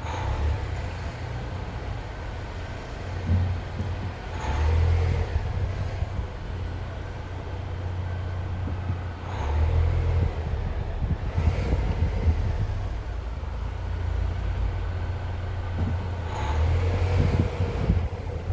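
Volvo XC40 T4 engine running with a knocking sound, over a steady low rumble that swells up and back down every few seconds.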